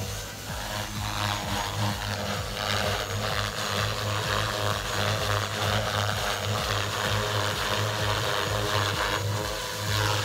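Electric RC helicopter flying: a steady low rotor drone with a pulsing beat under the whine of the electric motor and drivetrain.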